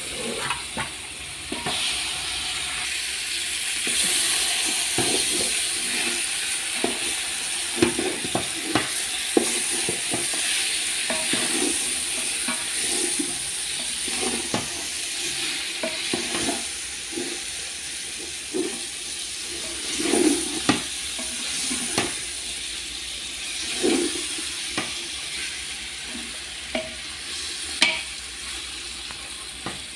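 Food sizzling as it fries in a pan, stirred with a utensil that knocks and scrapes against the pan many times, over a steady hiss.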